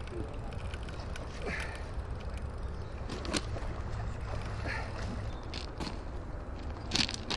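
Outdoor ambience: a steady low wind rumble on the microphone with scattered faint clicks and knocks, two of them sharper, about three and a half and seven seconds in.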